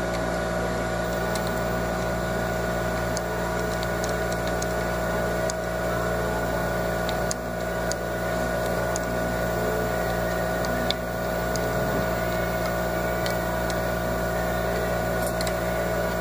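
Steady machinery hum holding several even tones, with no rise or fall, and a few faint, light metal clicks as a screwdriver works at the sewing machine's clamp.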